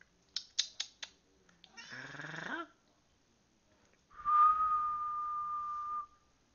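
Four sharp clicks, then a tabby cat gives one short meow that rises in pitch about two seconds in. A person then whistles a single steady note for about two seconds.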